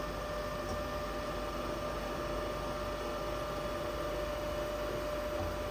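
Jakobsen SJ24 surface grinder running: a steady electric motor hum with a constant faint whine, even throughout.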